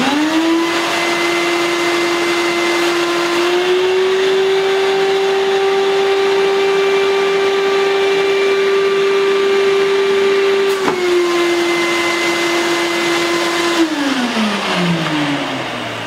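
Kärcher NT 221 wet-and-dry shop vacuum, 900 W, switched on and running with a loud, steady whine. A few seconds in its pitch rises slightly as the hose end seals against the heavy catalogue it is lifting. About eleven seconds in there is a sharp click and the pitch drops back as the catalogue slips off and the hose draws air again, and near the end the motor is switched off and winds down, its pitch falling.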